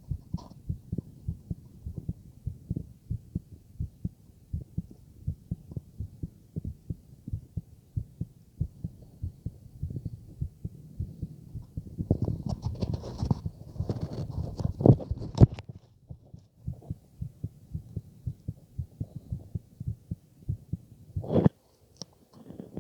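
Heartbeat heard through a stethoscope on the chest: a steady run of low, regular beats. Partway through, a louder, noisier stretch with a couple of sharp knocks, and near the end one more sharp knock followed by a brief drop to quiet.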